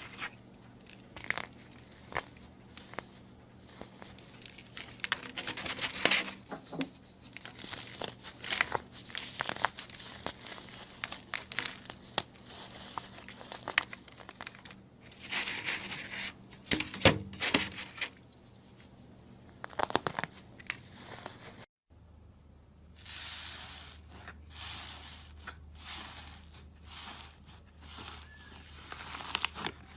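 Slime being squeezed, pressed and poked by hand, giving crinkly crackles, clicks and pops. After a brief break about two-thirds of the way in, the squishes turn into longer, softer hissy crackles.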